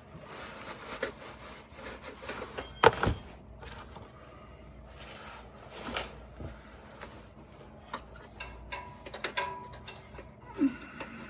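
Scattered clicks, scrapes and rubs of hand tools and metal parts being worked at a transmission servo, with one sharp knock about three seconds in and a cluster of clicks near the end.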